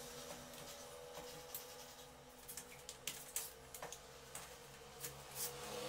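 Faint scratching and scattered light taps of a pen marking the white plastic reflector sheet inside an LED TV.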